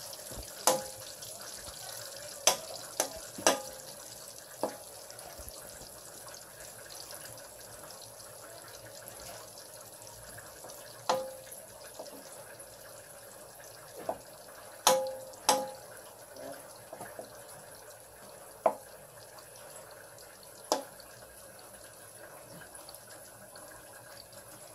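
Pork belly cubes sizzling in oil in a wok, a steady hiss, while a metal spoon stirs them and knocks against the pan about a dozen times with short ringing clinks.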